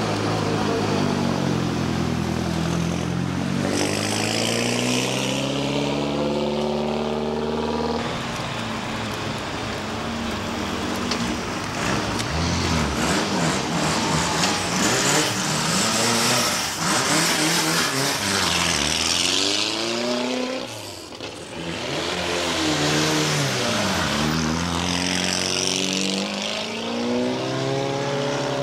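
Rally car engines accelerating away one after another, each engine note climbing in pitch and dropping back at the gear changes.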